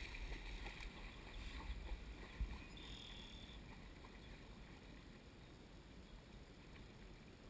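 Faint water splashing and sloshing from a dog swimming away across a pond, fading as it gets farther off, with a low wind rumble on the microphone. A brief high tone sounds about three seconds in.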